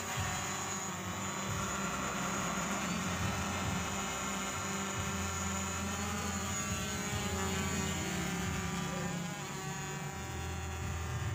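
Brushless motors and propellers of an MJX Bugs B4W quadcopter drone whirring as it lifts off and climbs. The whir glides in pitch as the motors spin up, then holds fairly steady.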